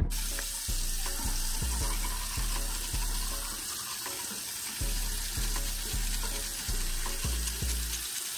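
Bathroom sink tap running steadily, over background music with deep bass notes about twice a second.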